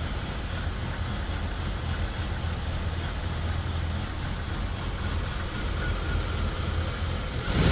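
Buick Rendezvous V6 idling roughly and unevenly, lurching as it misfires, with a rise in loudness near the end.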